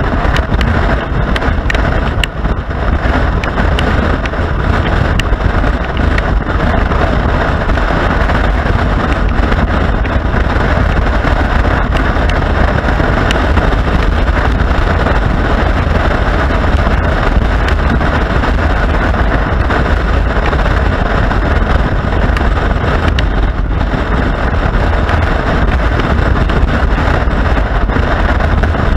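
Steady wind noise rushing over the microphone of a moving motorcycle, with the bike's road and engine noise beneath it.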